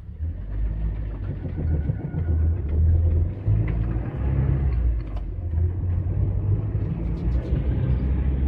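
Low, steady engine and road rumble heard inside the cab of a GAZelle van driving along a town street.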